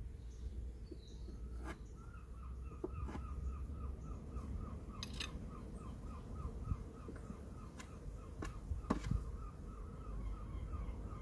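A bird calling a long run of short, evenly repeated notes, about three or four a second. Now and then there is a sharp click of wooden hive parts being handled.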